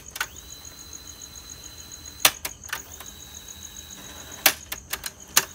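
National RX-5150 cassette deck's piano-key buttons and tape mechanism clicking, several sharp clicks as the tape is stopped and switched into wind for the automatic track-selection search. A faint high steady whine sets in after the clicks, about a second apart from each other near the start and middle.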